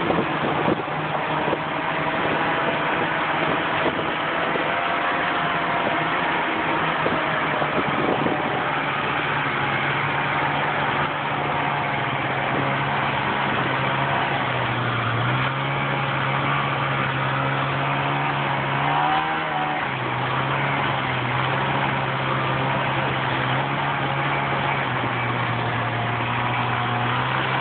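Snowmobile engine running steadily under way, its pitch stepping up and down a few times as the throttle changes, over a steady rush of wind and track noise.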